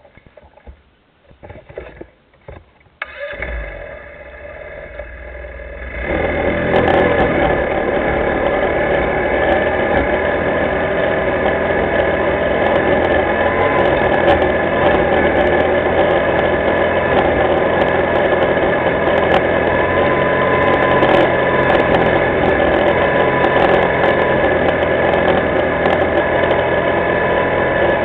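Linhai ATV engine started after a few knocks and rattles about three seconds in, idling quietly at first, then from about six seconds running louder and steady as the quad gets under way.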